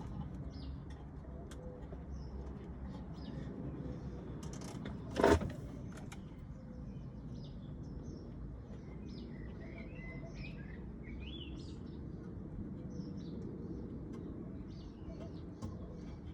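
Small birds chirping over a steady low rumble, with one sharp loud knock about five seconds in.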